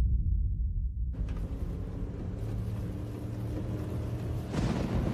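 Car cabin noise while driving in heavy rain: a deep low rumble for about the first second, then a steady hiss over the engine's low hum.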